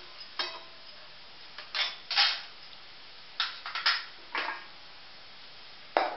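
Metal spatula scraping and stirring against a kadhai in several short, separate strokes. Near the end a steel lid clatters against the pan.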